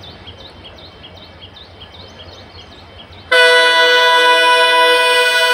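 The WDM-3A diesel locomotive's horn sounds one loud, steady, multi-tone blast, starting abruptly a little over three seconds in. Before it, a faint low rumble and a repeated high chirp, about three a second.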